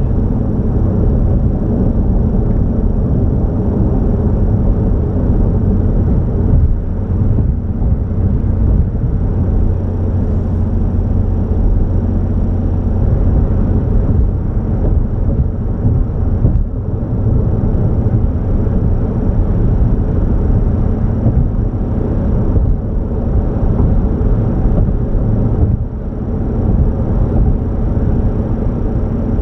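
Steady rumble of a moving car: engine and road noise, even and unbroken.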